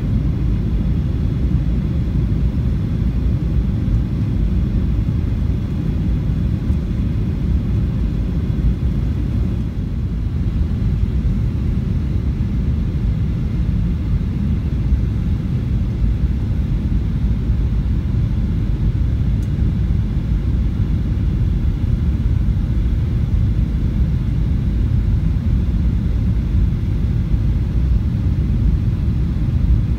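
Airliner cabin noise in flight: a steady low rumble that holds even throughout.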